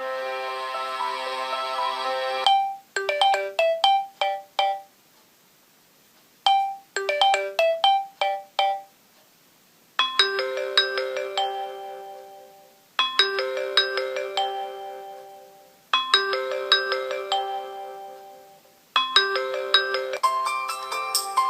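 Samsung Galaxy J1 Ace ringtones playing in turn: short electronic melodies, each repeated with brief pauses between. The tune changes about two and a half seconds in and again about ten seconds in.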